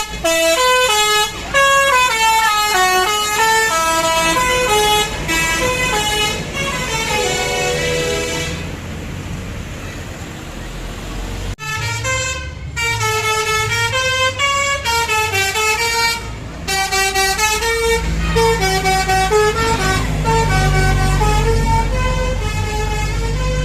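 A bus's basuri 'telolet' musical horn playing quick stepping melodies of bright multi-note chords, stopping for a few seconds around the middle and then starting again. Under it runs a vehicle's engine rumble, which grows louder near the end.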